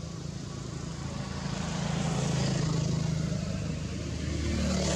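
A motor vehicle's engine running with a steady low hum, growing louder about two seconds in and again near the end.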